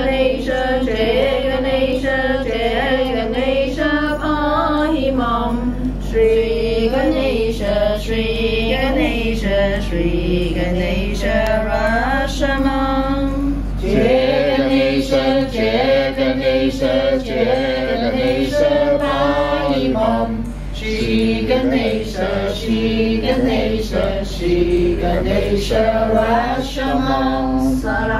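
A small group singing a devotional chant in unison, mostly women's voices, over a steady low hum.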